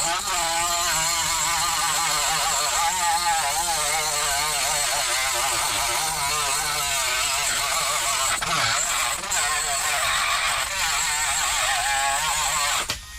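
Small high-speed rotary tool with an abrasive cut-off wheel grinding through the head of a stripped bolt, its whine wavering in pitch as the load changes. Near the end it cuts off abruptly with a sharp crack as the small cut-off disc shatters.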